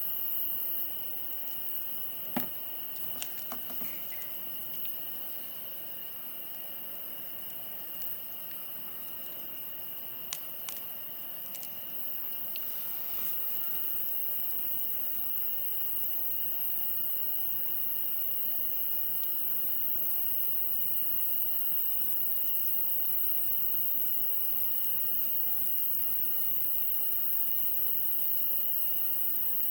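Wood campfire burning, with a few sharp pops in the first dozen seconds, over a steady high insect trill. From about halfway, a faint high chirp repeats about once a second.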